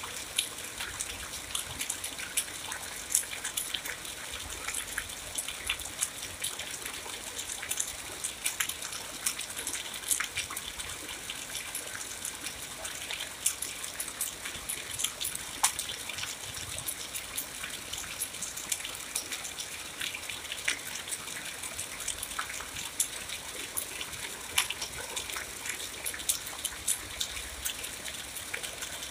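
Steady rain falling: an even hiss dotted with many sharp drop ticks.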